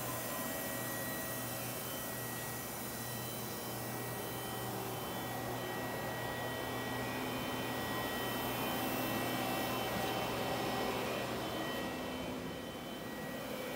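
Wasino G07-F CNC lathe running under power: a steady machine hum with a thin, high, constant whine over it.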